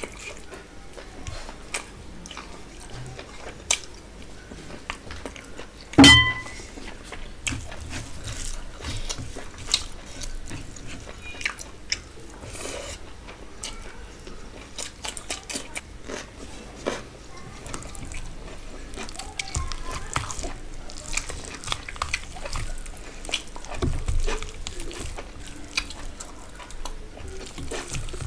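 Close-miked eating sounds: biting and chewing tandoori chicken and squishing rice and gravy by hand, with many small clicks and wet noises. About six seconds in, one sharp loud clink that rings briefly.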